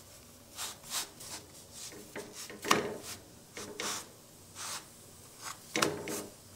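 Coconut polis being turned over by hand on an iron dosa griddle: soft, scattered scrapes and rustles of the dough sliding on the pan, with two sharper knocks, one nearly three seconds in and one near the end.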